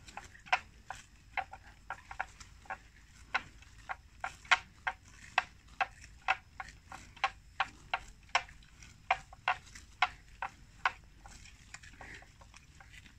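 Water buffalo tearing and chewing water plants, heard as a quick series of sharp crunching clicks, about two to three a second, that thin out near the end.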